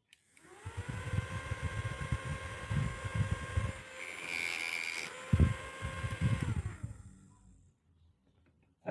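A small electric motor whirring: it spins up just after the start, runs with a steady whine and irregular low rattling, with one sharp knock partway through, then winds down and stops about seven seconds in.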